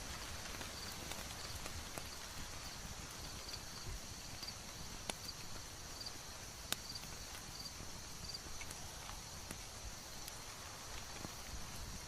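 Layered ambience: a wood fire crackling, with sparse sharp pops over a steady hiss, and a faint high chirp repeating about every two-thirds of a second.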